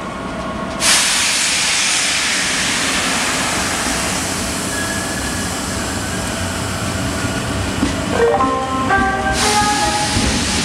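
SNCF electric locomotives and Corail coaches moving through a station. A loud, steady hiss starts about a second in. From about eight seconds, a locomotive's whining tones come in, jumping up and down in pitch.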